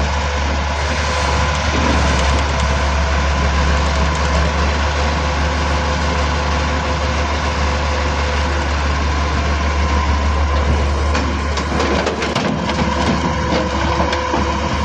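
Daewoo Solar 160 hydraulic excavator's diesel engine running steadily with a deep hum, with a cluster of knocks and clanks about eleven to thirteen seconds in.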